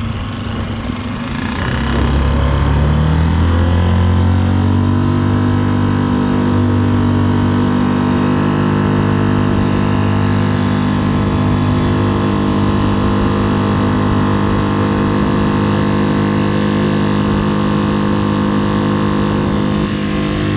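Mercury 3.5 hp single-cylinder four-stroke outboard motor driving a small boat: the throttle opens about two seconds in and the engine note climbs, then it runs at a steady pitch.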